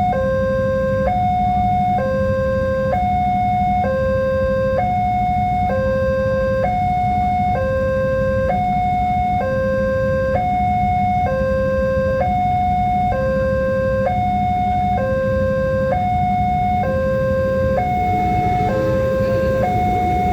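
Railway level-crossing warning alarm sounding a two-tone hi-lo signal: a higher and a lower electronic tone alternating, each held about a second, repeating steadily.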